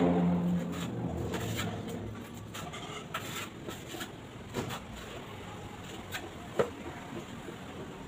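Small scrapes and taps of tiling work, trowel and tile pieces against mortar and tile, with a sharper click about six and a half seconds in. A passing engine hum fades out in the first second or so.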